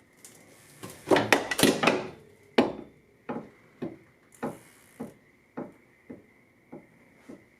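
Hand tool striking metal, heard as hammer-like blows: a cluster of loud knocks, then one hard hit, then a steady run of lighter strikes a little under two a second that grow weaker.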